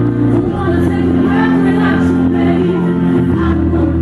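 A slow ballad with a singing voice over sustained chords. The chord changes about half a second in and again near the end.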